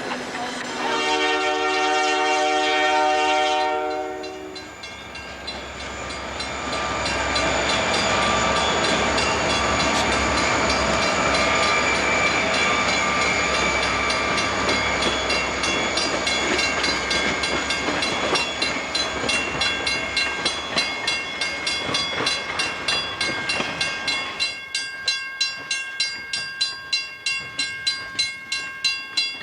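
A diesel-hauled train blows its horn in one long multi-tone blast, then passes close by with a heavy rolling rumble. Near the end the cars' wheels clatter over rail joints in a steady clickety-clack of about two beats a second.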